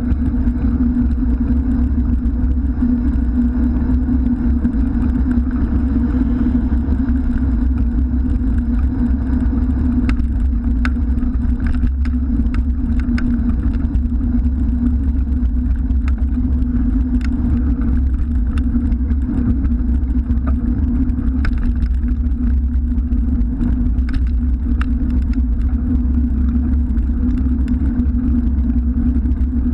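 Steady rumble of wind and road noise on a bicycle's handlebar-mounted camera while riding beside city traffic, with scattered light clicks.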